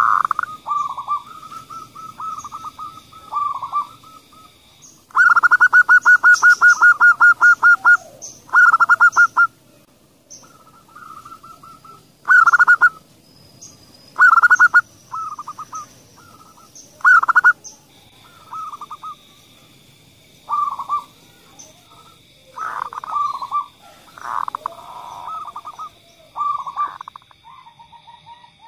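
Zebra doves cooing: a string of short, soft phrases broken by loud runs of rapid staccato coos, the longest a run of about fifteen notes. A steady high tone runs faintly behind them at the start and again through the last third.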